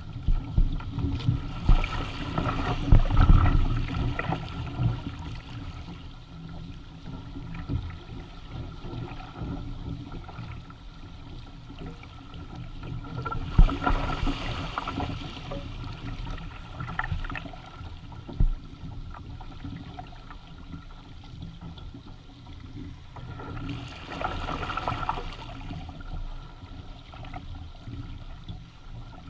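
Water rushing and splashing along the hull and outrigger floats of a Hobie Tandem Island sailing kayak under sail, swelling louder three times, about ten seconds apart, as waves pass, with low wind rumble on the microphone.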